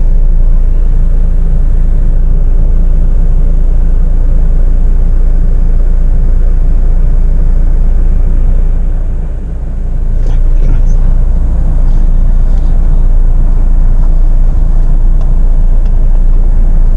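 Steady low rumble inside the Jeep Meridian's cabin as it stands idling on the trail, with its diesel engine ticking over and no throttle applied.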